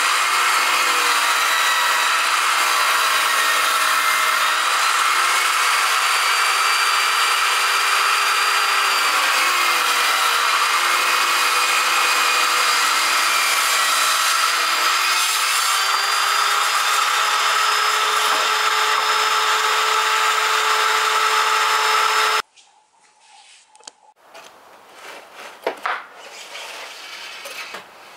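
Table saw running and cutting wood, a loud, steady sound for about twenty seconds that stops abruptly near the end, followed by a few quieter knocks.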